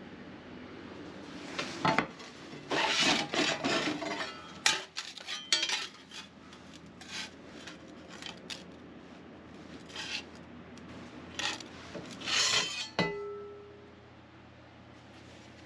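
Steel plates being handled against one another: irregular scraping and clinking, with a sharp metal clank near the end that rings briefly.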